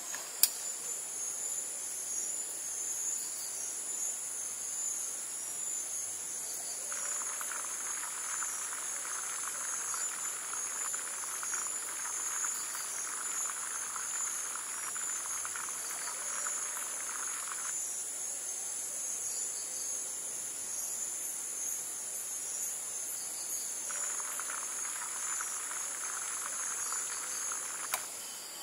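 Insects calling in a steady, high, continuous drone. A second, lower buzzing trill joins for about ten seconds in the middle and again near the end. There is a sharp click just after the start and another near the end.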